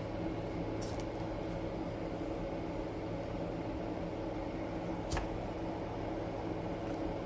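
Steady hum of a running appliance or fan, with a couple of light clicks, one about a second in and one about five seconds in.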